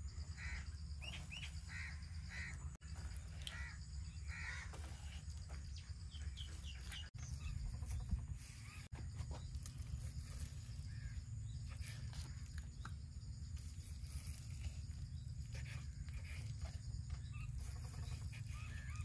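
Birds calling outdoors, a run of short repeated calls in the first few seconds and scattered calls after, over a steady low rumble.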